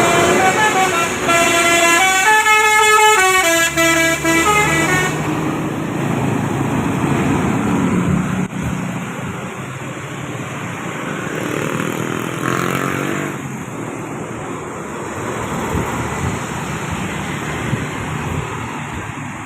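Tour bus's multi-tone telolet horn (Basuri type) playing a quick stepping melody for about five seconds, followed by the engine and road noise of traffic passing.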